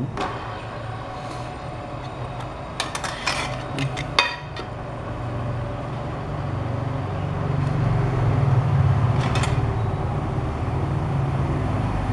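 Two aluminium three-blade fidget spinners whirring: a low steady hum that grows louder after about six seconds. A few sharp metallic clicks about three to four seconds in as the spinners are flicked and handled on the table.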